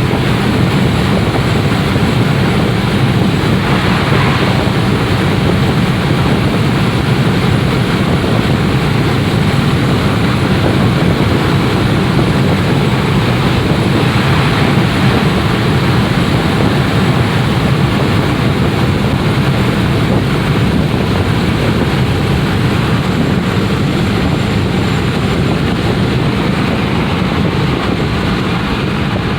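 Steady in-cabin noise of a Ford Crown Victoria Police Interceptor (P7B) driving at freeway speed: tyre, wind and engine drone, with two brief rushes about four and fourteen seconds in.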